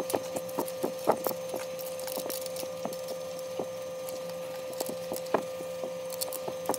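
Scattered light clicks and taps of metal parts being handled as a 20x20 aluminium extrusion is set onto a 3D printer's frame, a few sharper knocks among them, over a thin steady hum.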